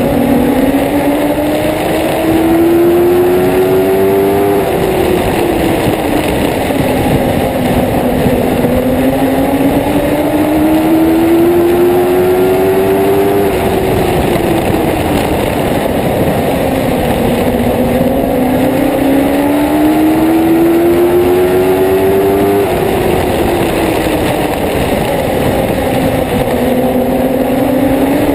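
Dwarf race car's motorcycle engine heard onboard, lap after lap. The pitch climbs steadily as it accelerates down each straight, then drops as the driver lifts into the turn. This cycle repeats about every nine seconds, three times, over a constant rush of noise.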